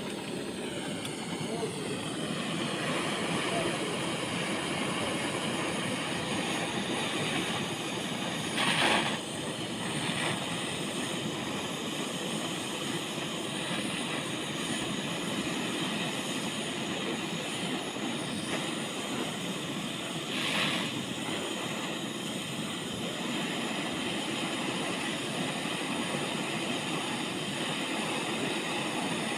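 Handheld gas torch on a screw-on cylinder burning with a steady rushing hiss, as its flame heats a steel spade blade and its tube socket; two brief louder moments come about 9 and 21 seconds in.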